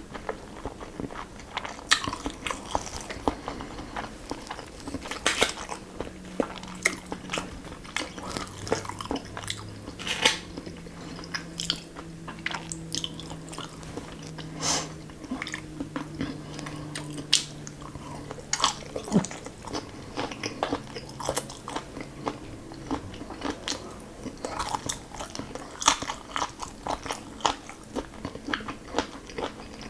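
Close-miked eating: a person biting and chewing food with irregular wet mouth clicks, smacks and crunches.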